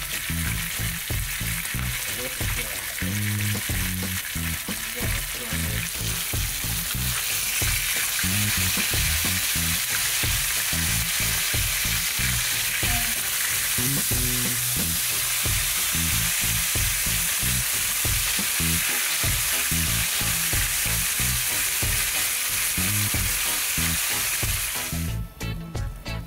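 Whole fish frying in hot oil in a pan, a steady loud sizzle that stops about a second before the end. Background music with a bass line plays underneath.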